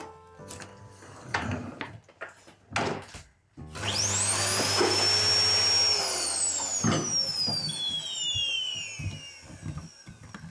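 Canister vacuum cleaner switched on about a third of the way in: its motor whine rises quickly and runs steadily for a couple of seconds. It is then switched off, and the whine falls slowly as the motor winds down. A few knocks come before it starts.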